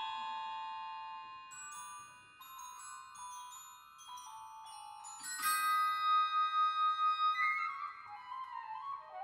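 Orchestral music in a quiet passage of ringing tuned mallet-percussion notes over soft held tones. About five seconds in, a louder cluster of bell-like held notes enters and wavers.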